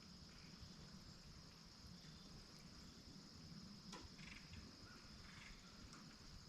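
Near silence with faint, steady high-pitched chirring of crickets, and a single faint click about four seconds in.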